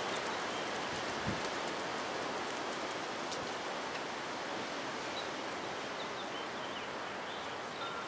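Strong wind, gusting at 50–60 mph, rushing through bare trees as a steady noisy roar, with a brief low thump about a second in.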